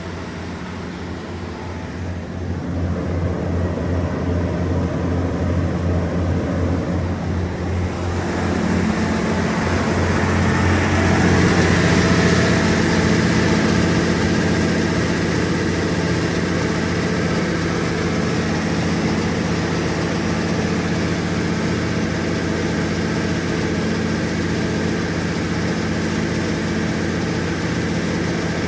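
Cummins NTA-855-G2 turbocharged inline-six diesel engine of a 300 kW generator set running at a steady speed. About eight seconds in it grows louder with more hiss, then holds steady.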